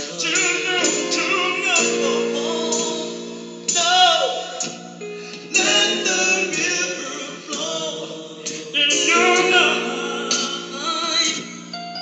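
Gospel music: a man singing with open, sustained vocal lines over a backing of held chords that carries other voices.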